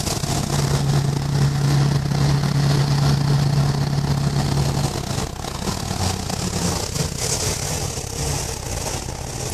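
Scania 142's V8 diesel engine pulling steadily under way, heard from inside the cab. About five seconds in, the engine note drops and turns a little quieter.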